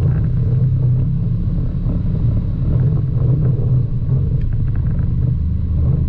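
Side-by-side UTV engine running steadily while driving a dirt trail, its note dropping a little near the end.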